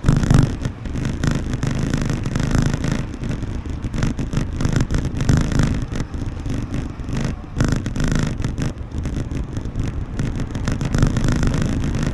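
City street traffic noise with a low, uneven rumble.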